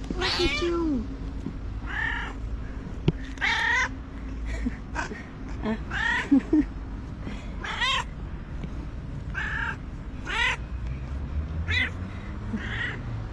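Calico cat meowing over and over, about a dozen short calls a second or so apart, a long chattering run of meows.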